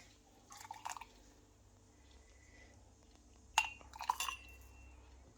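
A metal spoon clinking against a clear glass cup as tea is spooned into it, with faint drips of liquid. A sharper clink about three and a half seconds in leaves a short ringing tone from the glass.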